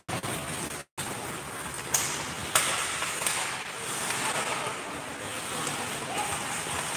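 Ice hockey rink sound during play: a steady hiss of skates and rink noise, with two sharp stick-and-puck clacks about two seconds in and faint distant shouts. The sound cuts out completely for a moment about a second in.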